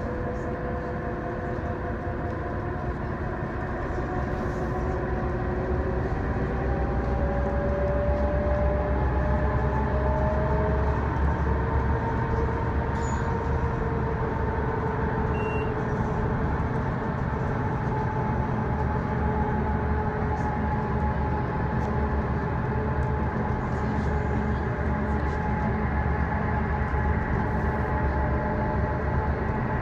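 Inside a moving bus: a steady engine and road rumble, with a whine that rises in pitch over the first ten seconds or so as the bus gathers speed and grows louder.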